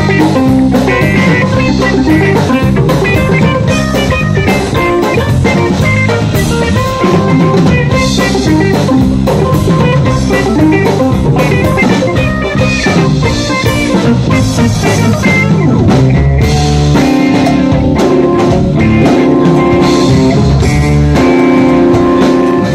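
Live rock band playing an instrumental break: electric guitar, drum kit and synthesizer keyboards, with no vocals.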